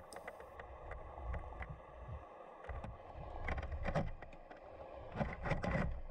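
Muffled underwater sound picked up by a GoPro in its waterproof housing inside a submerged lobster trap: a low rumble with scattered faint clicks, and a few louder knocks about four and five and a half seconds in.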